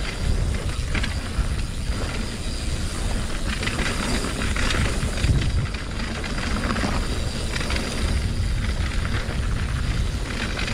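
2020 Norco Torrent HT steel hardtail mountain bike riding down a rough dirt trail. The tyres give a steady low rumble, and the bike rattles and clatters over bumps throughout.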